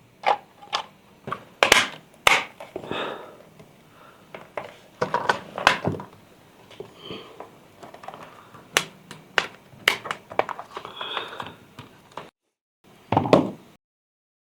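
Irregular sharp plastic clicks, taps and knocks from a DJI Mavic 3 Pro drone's parts being handled and fitted together, with brief scraping between them.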